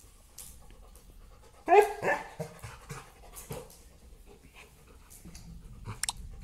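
Yellow Labrador retriever playing with a stuffed toy: one loud, short bark-like yip about two seconds in, followed by huffing, panting breaths. A sharp click comes near the end.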